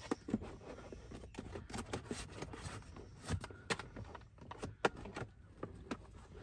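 Irregular light clicks, taps and rustling of hands handling and pressing on the plastic base of an Evenflo Gold rotating car seat while securing the seat belt in it.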